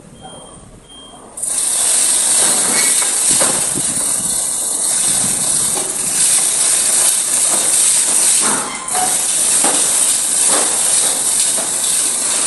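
A loud, steady hiss starts abruptly about a second and a half in and runs on, dipping briefly near the end, with a few faint knocks under it.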